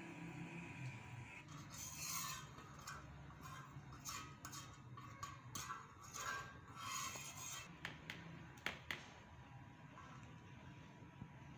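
Steel spoon scraping and rubbing across a flat iron tawa griddle in repeated short strokes, spreading oil over it, with a few sharp clinks of the spoon against the pan near the end.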